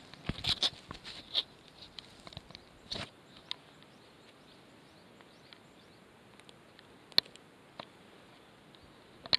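Rustling and crunching in dry brush and cut branches during the first three seconds. After that it is mostly quiet apart from a sharp click about seven seconds in and another at the end.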